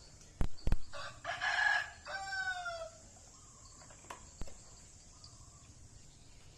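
A rooster crowing once: a harsh opening followed by a drawn-out pitched note that falls slightly at the end. Two sharp knocks come just before it, and these are the loudest sounds.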